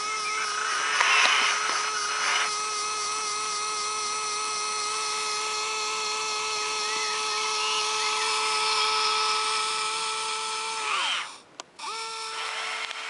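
Steady high electric whine from the motor of a radio-controlled model tracked dumper as its skip tips up, with a brief louder rush about a second in. Near the end the whine winds down and stops, there is a click, and it starts up again.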